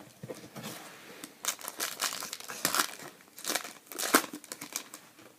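Foil trading-card pack wrapper crinkling in the hands: a run of irregular, noisy rustles, the loudest about four seconds in.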